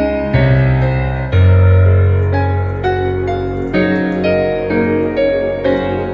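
Piano music: held notes and chords, with a new note or chord about every second.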